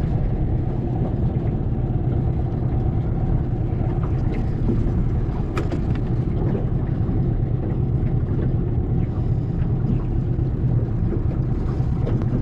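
Outboard motor on a small aluminium boat idling as a steady low rumble, with a few faint clicks of tackle being handled.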